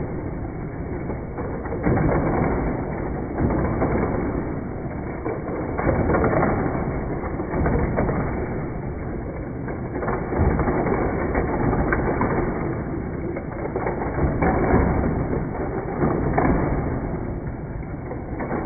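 Hot Wheels die-cast cars racing around a plastic loop track, driven through the motorized booster in the centre hub: a continuous whirring rattle with clicks of wheels on track joints, swelling every second or two as a car is shot through the booster.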